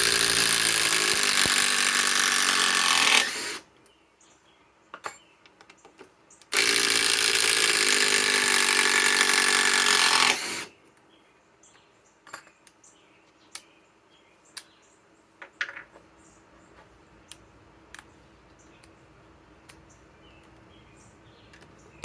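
Metabo HPT WH18DDX subcompact impact driver hammering as it backs out 6-inch TimberLOK screws. It runs in two bursts of about four seconds each, one at the start and one about six and a half seconds in, with small clicks of handling between and after.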